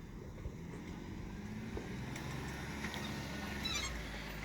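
Off-road Jeep's engine running steadily under load as it works up a rock ledge, a low, even engine sound, with a brief high squeak near the end.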